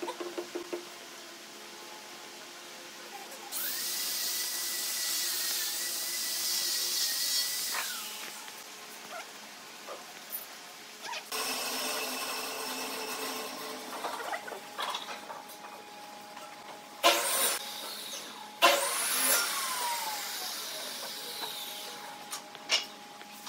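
An electric motor, like a power tool's, run in three short bursts. A sharp knock comes just before the last burst, which winds down with a falling whine.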